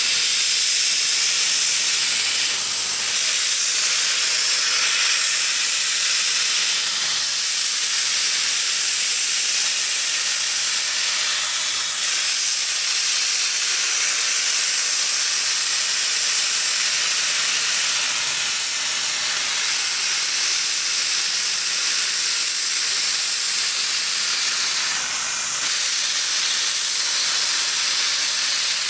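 Norfolk & Western 611, a J-class 4-8-4 steam locomotive, venting steam at its cylinders with a loud, steady hiss that eases briefly a few times.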